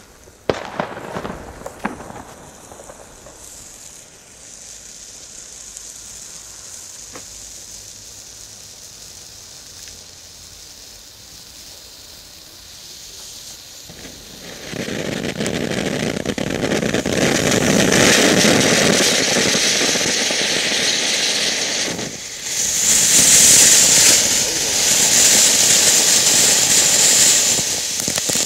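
WECO Zauberwürfel ground firework burning: a few sharp cracks about half a second in, then a faint steady hiss that turns into a loud, rushing hiss about 14 seconds in, growing harsher and higher from about 22 seconds.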